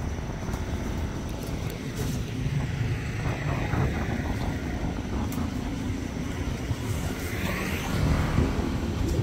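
A low, steady engine rumble that swells about two seconds in and again near the end, with a run of light clicks in between.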